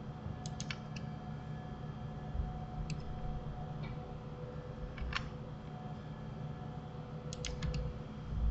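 Computer keyboard and mouse clicking: a few quick clicks about half a second in, single clicks near three and five seconds, and a rapid run of about four near the end, over a steady low hum.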